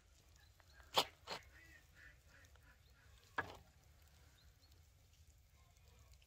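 A spade working garden soil while a small conifer is planted: three short sharp strikes, the loudest about a second in, another just after it and a third past the middle. Faint short bird calls in the background.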